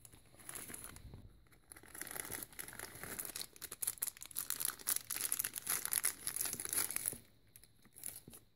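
Crinkling and rustling of a small plastic zip-lock bag being handled and opened, with a small toy cart pulled out of it. The crackling is busiest from about two seconds to seven seconds in, then stops, with one short burst near the end.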